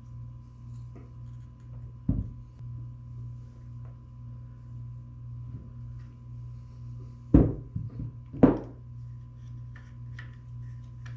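Crossbow parts handled on a tabletop: a knock about two seconds in, then two louder knocks about a second apart in the second half and a few light clicks, over a steady low hum.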